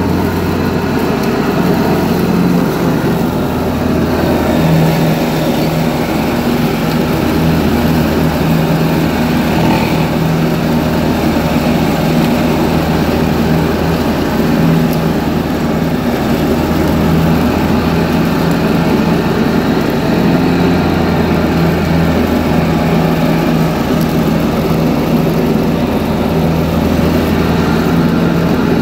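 John Deere 445 garden tractor running steadily under load while its mower deck cuts tall, wet grass. The low engine hum swells and fades every couple of seconds as the load changes.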